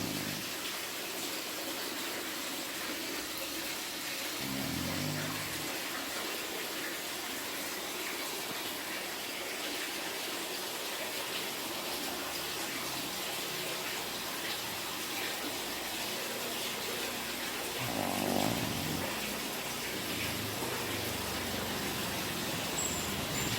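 French bulldog snoring: low snores about five seconds in and again near eighteen seconds, over a steady hiss.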